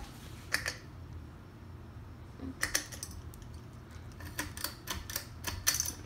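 Hampton Bay Landmark 52-inch ceiling fan running with a low steady hum, under a series of sharp clicks and taps that come closer together in the last two seconds.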